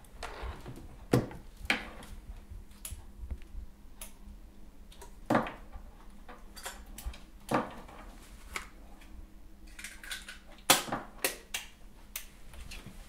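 A series of irregular sharp clicks and knocks, as of small hard objects being handled, a few of them louder, with one of the loudest near the end.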